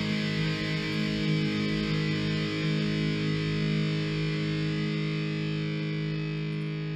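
Background music: a distorted electric guitar chord held and ringing out.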